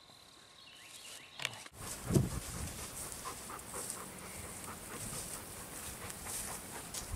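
An animal panting in quick, even breaths, after a loud thump about two seconds in.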